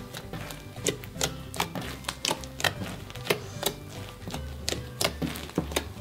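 Fingertips poking and squeezing floam slime, the foam beads crackling in sharp, irregular clicks about twice a second, over background music.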